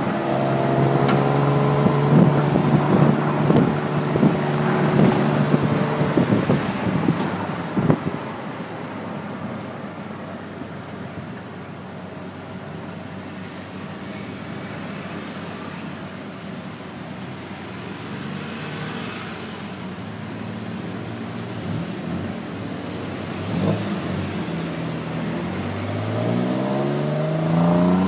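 Tuk-tuk's small engine running under the open passenger cab, with traffic noise around it. It holds steady for the first several seconds, grows quieter through the middle, and revs up with rising pitch near the end as the tuk-tuk accelerates.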